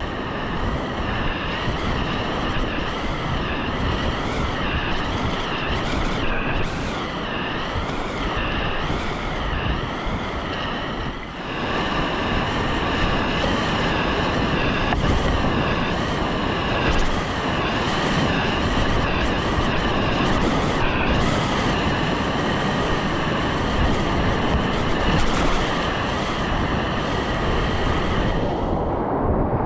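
Whitewater rapids rushing loudly around a kayak, with wind buffeting an action camera's microphone.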